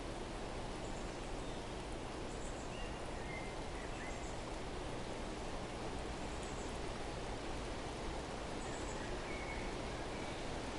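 A few faint, short bird chirps scattered over a steady rushing background noise.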